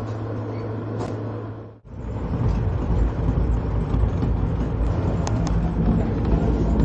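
A steady hum fades out just under two seconds in. The rumble of an express train running at speed follows, with a few sharp clicks about five seconds in.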